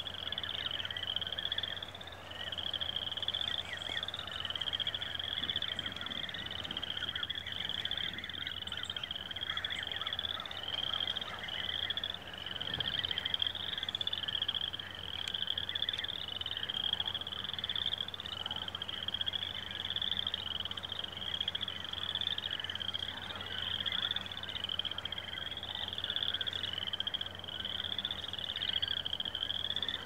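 Chorus of frogs calling in high trills, one after another about once a second without a break, with fainter scattered chirps beneath and a steady low hum.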